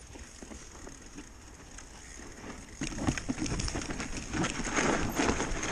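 Mountain bike rolling down a snowy trail: tyre noise and the bike rattling and clattering over bumps. It gets louder and busier about three seconds in.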